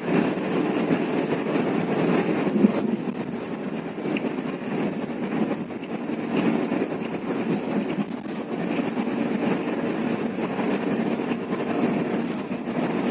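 Intercity coach bus on the move: steady engine and road noise with no marked changes.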